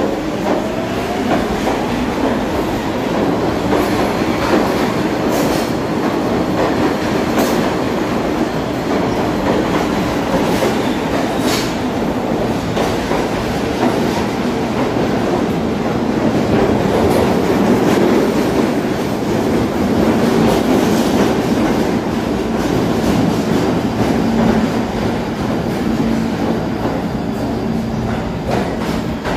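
New York City Subway R train pulling out of an underground station: a motor whine rises in pitch at the start as it accelerates, then the cars roll past with a steady running noise and a few brief high squeaks. The sound eases slightly at the very end as the last car leaves.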